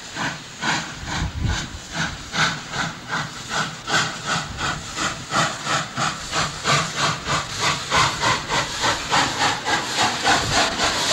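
Steam locomotive exhaust chuffing at about three beats a second over a steady steam hiss, the beats growing slightly louder and quicker as the engine works harder.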